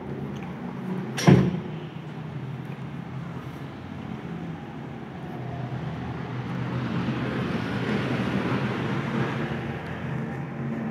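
Steady low rumbling background noise with one sharp knock about a second in; a hissing rush grows louder in the second half.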